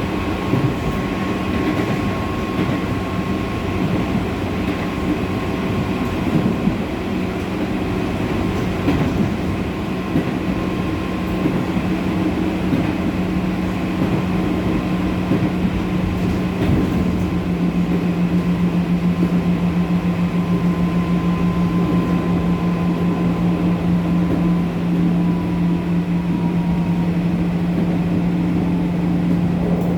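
JR 205 series electric train running at speed, heard from inside a motor car: steady traction motor and gearbox whine over the rumble of wheels on rail. In the second half a regular throbbing sets in, and the highest whine slowly drops in pitch near the end.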